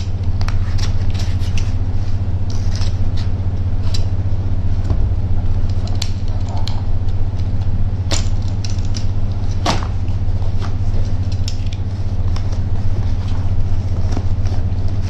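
Cardboard parcel being cut open and its taped flaps pulled back, giving scattered sharp clicks and crackles over a steady low hum.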